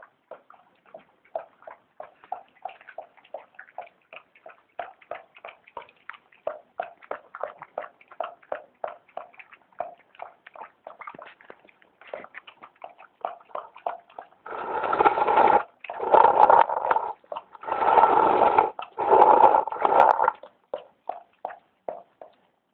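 A small dog eating from a bowl: quick wet chewing and smacking, about three or four a second. In the second half come four louder rasping noises, each about a second long.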